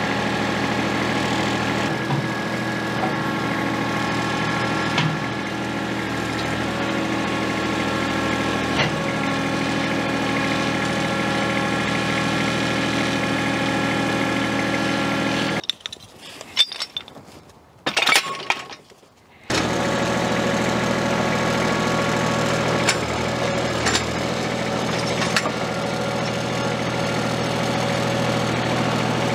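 Kubota B7500 compact tractor's three-cylinder diesel engine running steadily, with a few light knocks over it. Just past the middle the engine drops out for about four seconds, leaving only a few sharp knocks, then it runs on.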